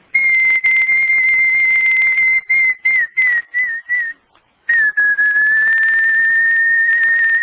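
A high whistle holding one steady note for about two and a half seconds, then a few short wavering notes, a brief pause, and a second long, slightly lower note.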